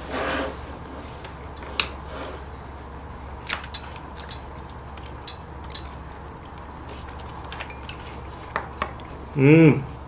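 Scattered light clicks and clinks of chopsticks and spoons against bowls and a metal pot during a meal. A brief loud vocal sound comes near the end.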